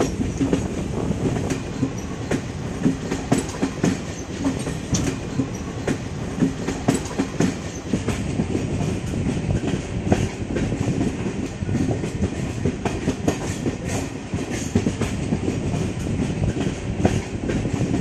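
Passenger train running, heard from on board: a steady rumble of the coaches with wheels clattering over the track in many irregular clacks and knocks.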